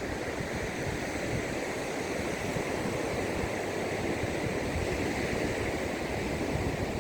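Sea surf: waves breaking on a beach in a steady, continuous rush.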